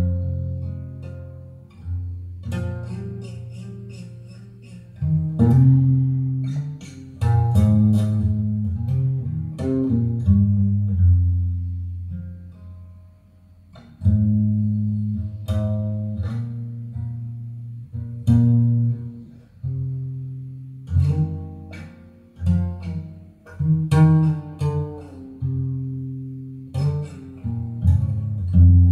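Instrumental break of a Chinese ballad played back over a pair of bookshelf hi-fi speakers: plucked-string notes that ring and fade over deep bass notes. The playing thins to a brief lull about halfway through, then resumes.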